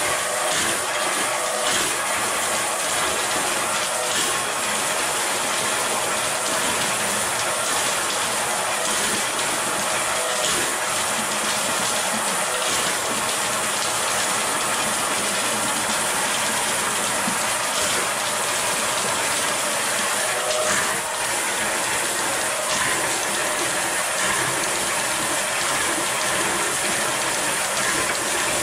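Electric Eel Model C drain-cleaning machine running, its steel cable spinning in the stack-base drain pipe with a steady rattling whir.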